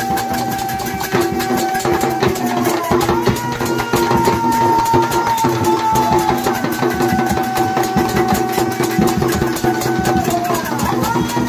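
Music with drums: a melody of long held notes that slide between pitches, over a steady drone, with fast, dense drumming throughout.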